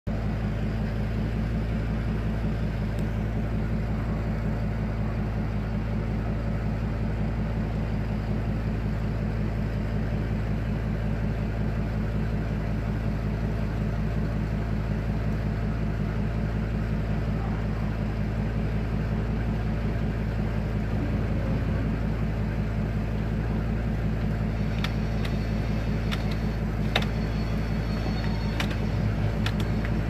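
Vehicle engine running steadily, an even low hum that does not change. A few faint clicks and a thin high tone come in near the end.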